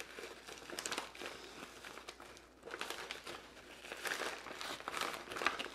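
Plastic vacuum-sealer bag crinkling and rustling as a piece of pork is pushed into it, with a short lull about two seconds in.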